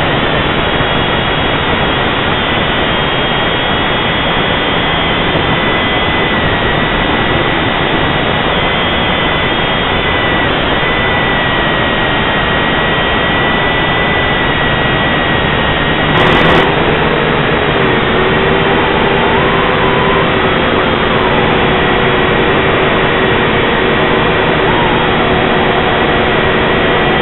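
Small drone's motors and propellers as picked up by its own onboard camera: a loud, steady whirring with a constant high whine. About sixteen seconds in there is a brief click, after which a lower steady hum joins.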